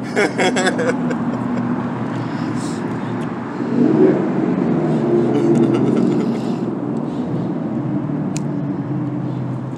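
Steady hum of motor traffic, with a vehicle growing louder about four seconds in and fading over the next few seconds.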